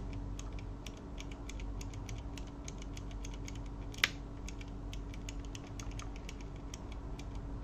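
Akko V2 Blue clicky mechanical keyboard switches pressed rapidly and repeatedly with the keycaps removed, giving a stream of sharp clicks. One click about four seconds in is louder than the rest.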